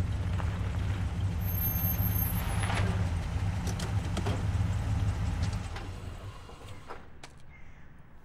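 Car engine running, a steady low rumble that fades away from about six seconds in.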